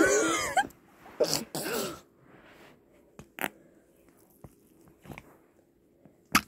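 Fart noises: a long one at the start, two shorter ones a little over a second in, then a few brief, fainter ones spread through the rest.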